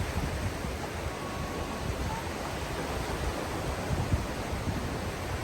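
Sea waves washing on the beach, a steady rushing noise, with wind buffeting the microphone in low rumbling gusts.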